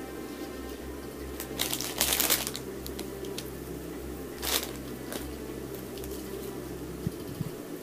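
Crinkling and rustling of shiny silver ornament filler and a clear plastic ball ornament being handled, loudest in a burst about two seconds in and a shorter one about four and a half seconds in, with a few light clicks.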